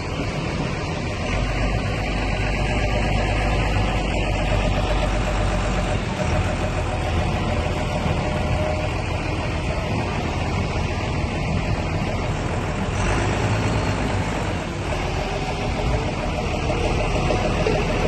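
A vehicle engine running steadily with a low rumble, loudest in the bass between about one and six seconds in.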